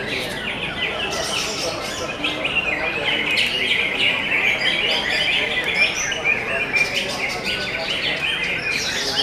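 Many caged green leafbirds (cucak hijau) singing at once in a dense, unbroken chorus of quick chirps and trills.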